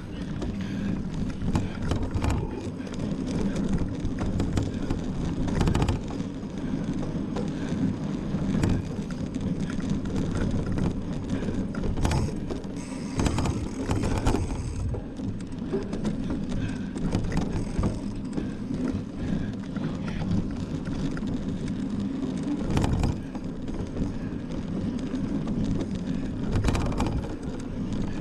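Mountain bike ridden hard over an off-road race course: a steady rumble of tyres and drivetrain, broken every few seconds by sharp clatters as the bike rattles over bumps.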